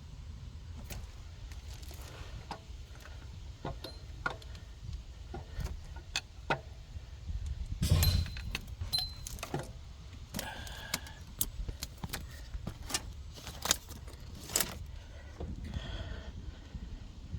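Metal tools and loose engine parts clinking and clanking in an irregular string of sharp knocks, the loudest about eight seconds in, a few ringing briefly, over a steady low hum.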